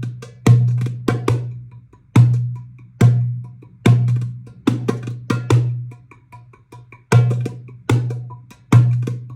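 Hand drumming: a drum struck by hand, each beat a sharp slap with a deep ringing low tone that fades out, played in a slow uneven rhythm of single beats and quick doubles.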